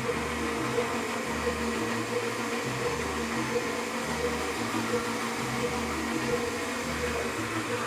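Background music with a steady, regular bass line, over a constant rushing hiss.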